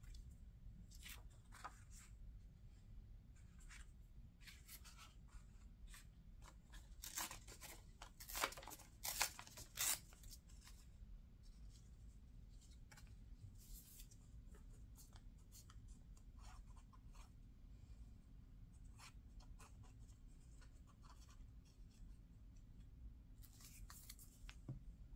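Vintage paper scraps rustling and sliding as they are picked up and laid down by hand, in short scattered rustles over a faint low hum, with a cluster of louder rustles about a third of the way through.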